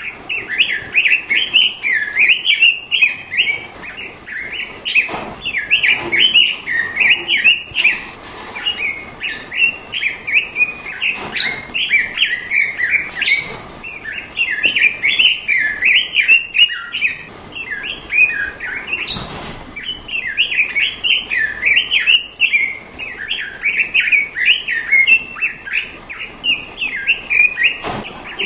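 A songbird singing a fast, almost unbroken twittering warble of quick, high notes, with a few short clicks and one brief burst of noise about two-thirds of the way through.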